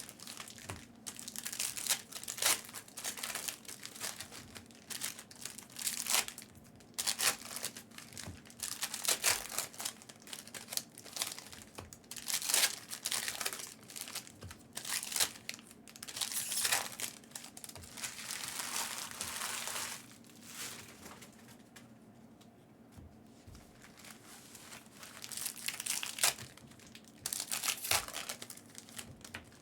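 Trading-card pack wrappers crinkling and tearing open as packs and cards are handled, in irregular bursts with a quieter lull about two-thirds of the way in.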